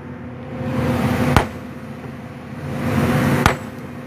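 Excavator engine running with a steady hum, its sound swelling and easing about every two seconds, and a sharp knock at the end of each swell, twice.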